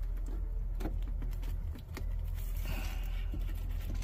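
Light scraping, rustling and a few small clicks as the cut-out sheet-metal floor panel over the fuel pump is pried up and lifted free by hand, over a steady low rumble.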